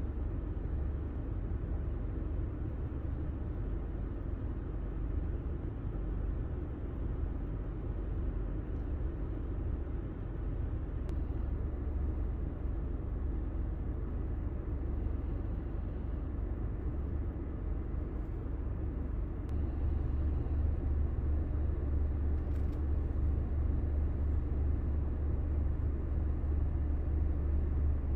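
Steady low rumble of a car's engine and road noise heard from inside the cabin, growing a little louder about two-thirds of the way through.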